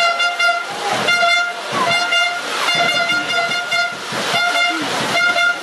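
A supporters' horn in the stands, blown in several blasts of about a second each. Each blast is one steady note. Shouts and crowd noise run underneath.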